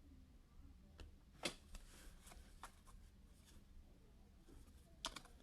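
Quiet handling of trading cards: a few faint sharp clicks and light rustles as cards are slid and flipped, over a low steady hum.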